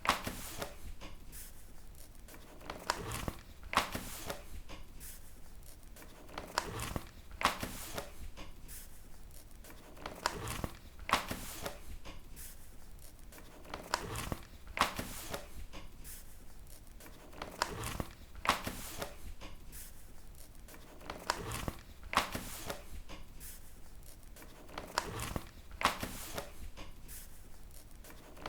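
Paper pages being turned one at a time. Each turn is a short rustle ending in a sharp flap, and they repeat about every three and a half to four seconds.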